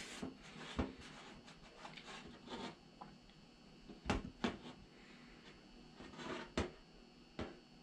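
Scattered light scrapes and knocks as a small ceramic bowl of smoked quail eggs is handled and turned on a stainless steel counter.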